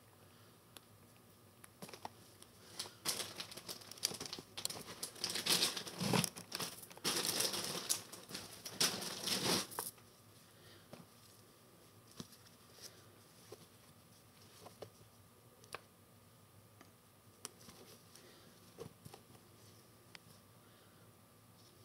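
Clothes and plastic rustling and crinkling as a hand rummages through a plastic bin of clothing. It is loud and continuous for several seconds in the first half, then drops to faint, scattered rustles and light taps.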